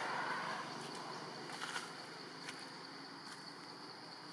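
Steady high-pitched drone of forest insects, with a few faint clicks in the middle.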